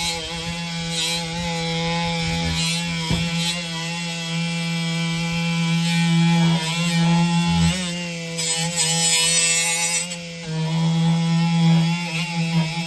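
HyperTough 12-volt cordless die grinder running steadily with an abrasive pad, scrubbing paint residue off an engine backplate down to bare, shiny metal. There is a constant motor whine under the scratchy rasp of the pad on the metal, and the rasp grows louder for a couple of seconds near the end.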